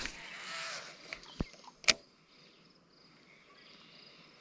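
A short rush of noise, then two sharp clicks or knocks about a second and a half and two seconds in, the second one louder. Faint steady insect chirring sits underneath.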